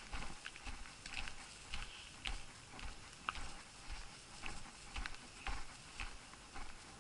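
Footsteps of a person walking at a steady pace, about two steps a second, each a soft thud with a light scuff.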